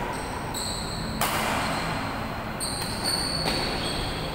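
Badminton rackets striking the shuttlecock in a rally, three sharp hits about a second apart, each echoing briefly in the hall.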